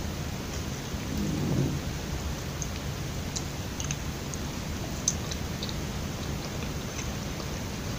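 Steady hiss of background noise, with a soft low rumble about a second and a half in. After that come faint sticky mouth clicks from biting and chewing a soft glutinous-rice kuih, with one sharper click about five seconds in.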